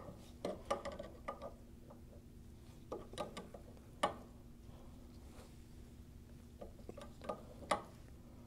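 Metal wrench clicking and clinking against the displacement pump's fittings as they are tightened, in short clusters of sharp clicks every few seconds. A faint steady hum runs underneath.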